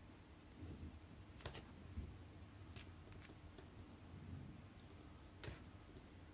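Near silence with a few faint, sharp clicks of steel tweezers and small tools touching a watch movement and its metal movement holder, over low handling rumble.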